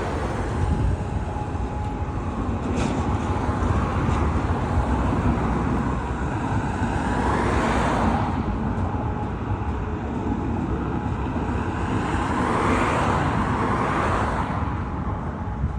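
Road traffic passing, over a steady low rumble: one vehicle swells and fades about halfway through, and another near the end.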